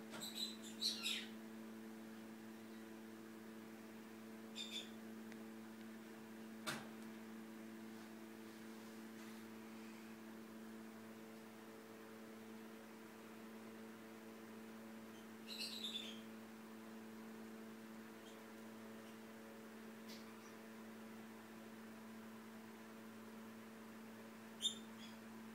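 Faint steady hum, with a few short, faint, high chirping squeaks: about a second in, near five seconds, around sixteen seconds and once near the end.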